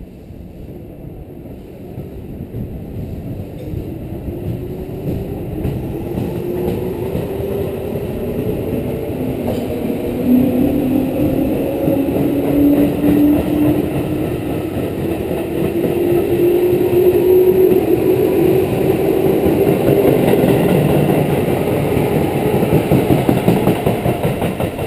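Tobu 8000 series electric train accelerating away from the platform. Its traction motors whine steadily higher in pitch under the rumble of wheels on rail, and the sound grows louder as the cars roll past, easing only as the last car goes by near the end.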